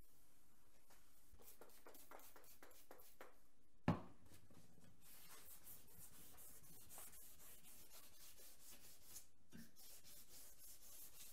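Faint back-and-forth strokes of hand sanding, with a single sharp knock about four seconds in. The strokes come faster and closer together in the second half.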